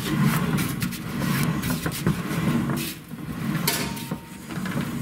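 Tumble dryer started up to test a newly fitted drive belt: the motor turning the drum through the belt, with a running rumble and scattered knocks.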